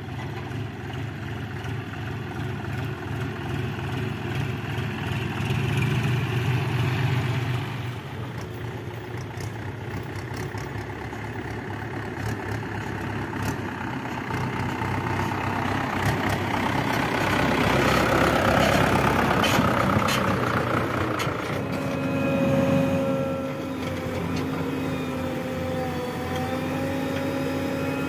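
Diesel tractor engines running as the tractors move with their trailers, rising in loudness past the middle. The sound changes about eight seconds in and again near twenty-one seconds. In the last several seconds comes a steady engine note with a held whine, from a JCB 3DX backhoe loader's diesel.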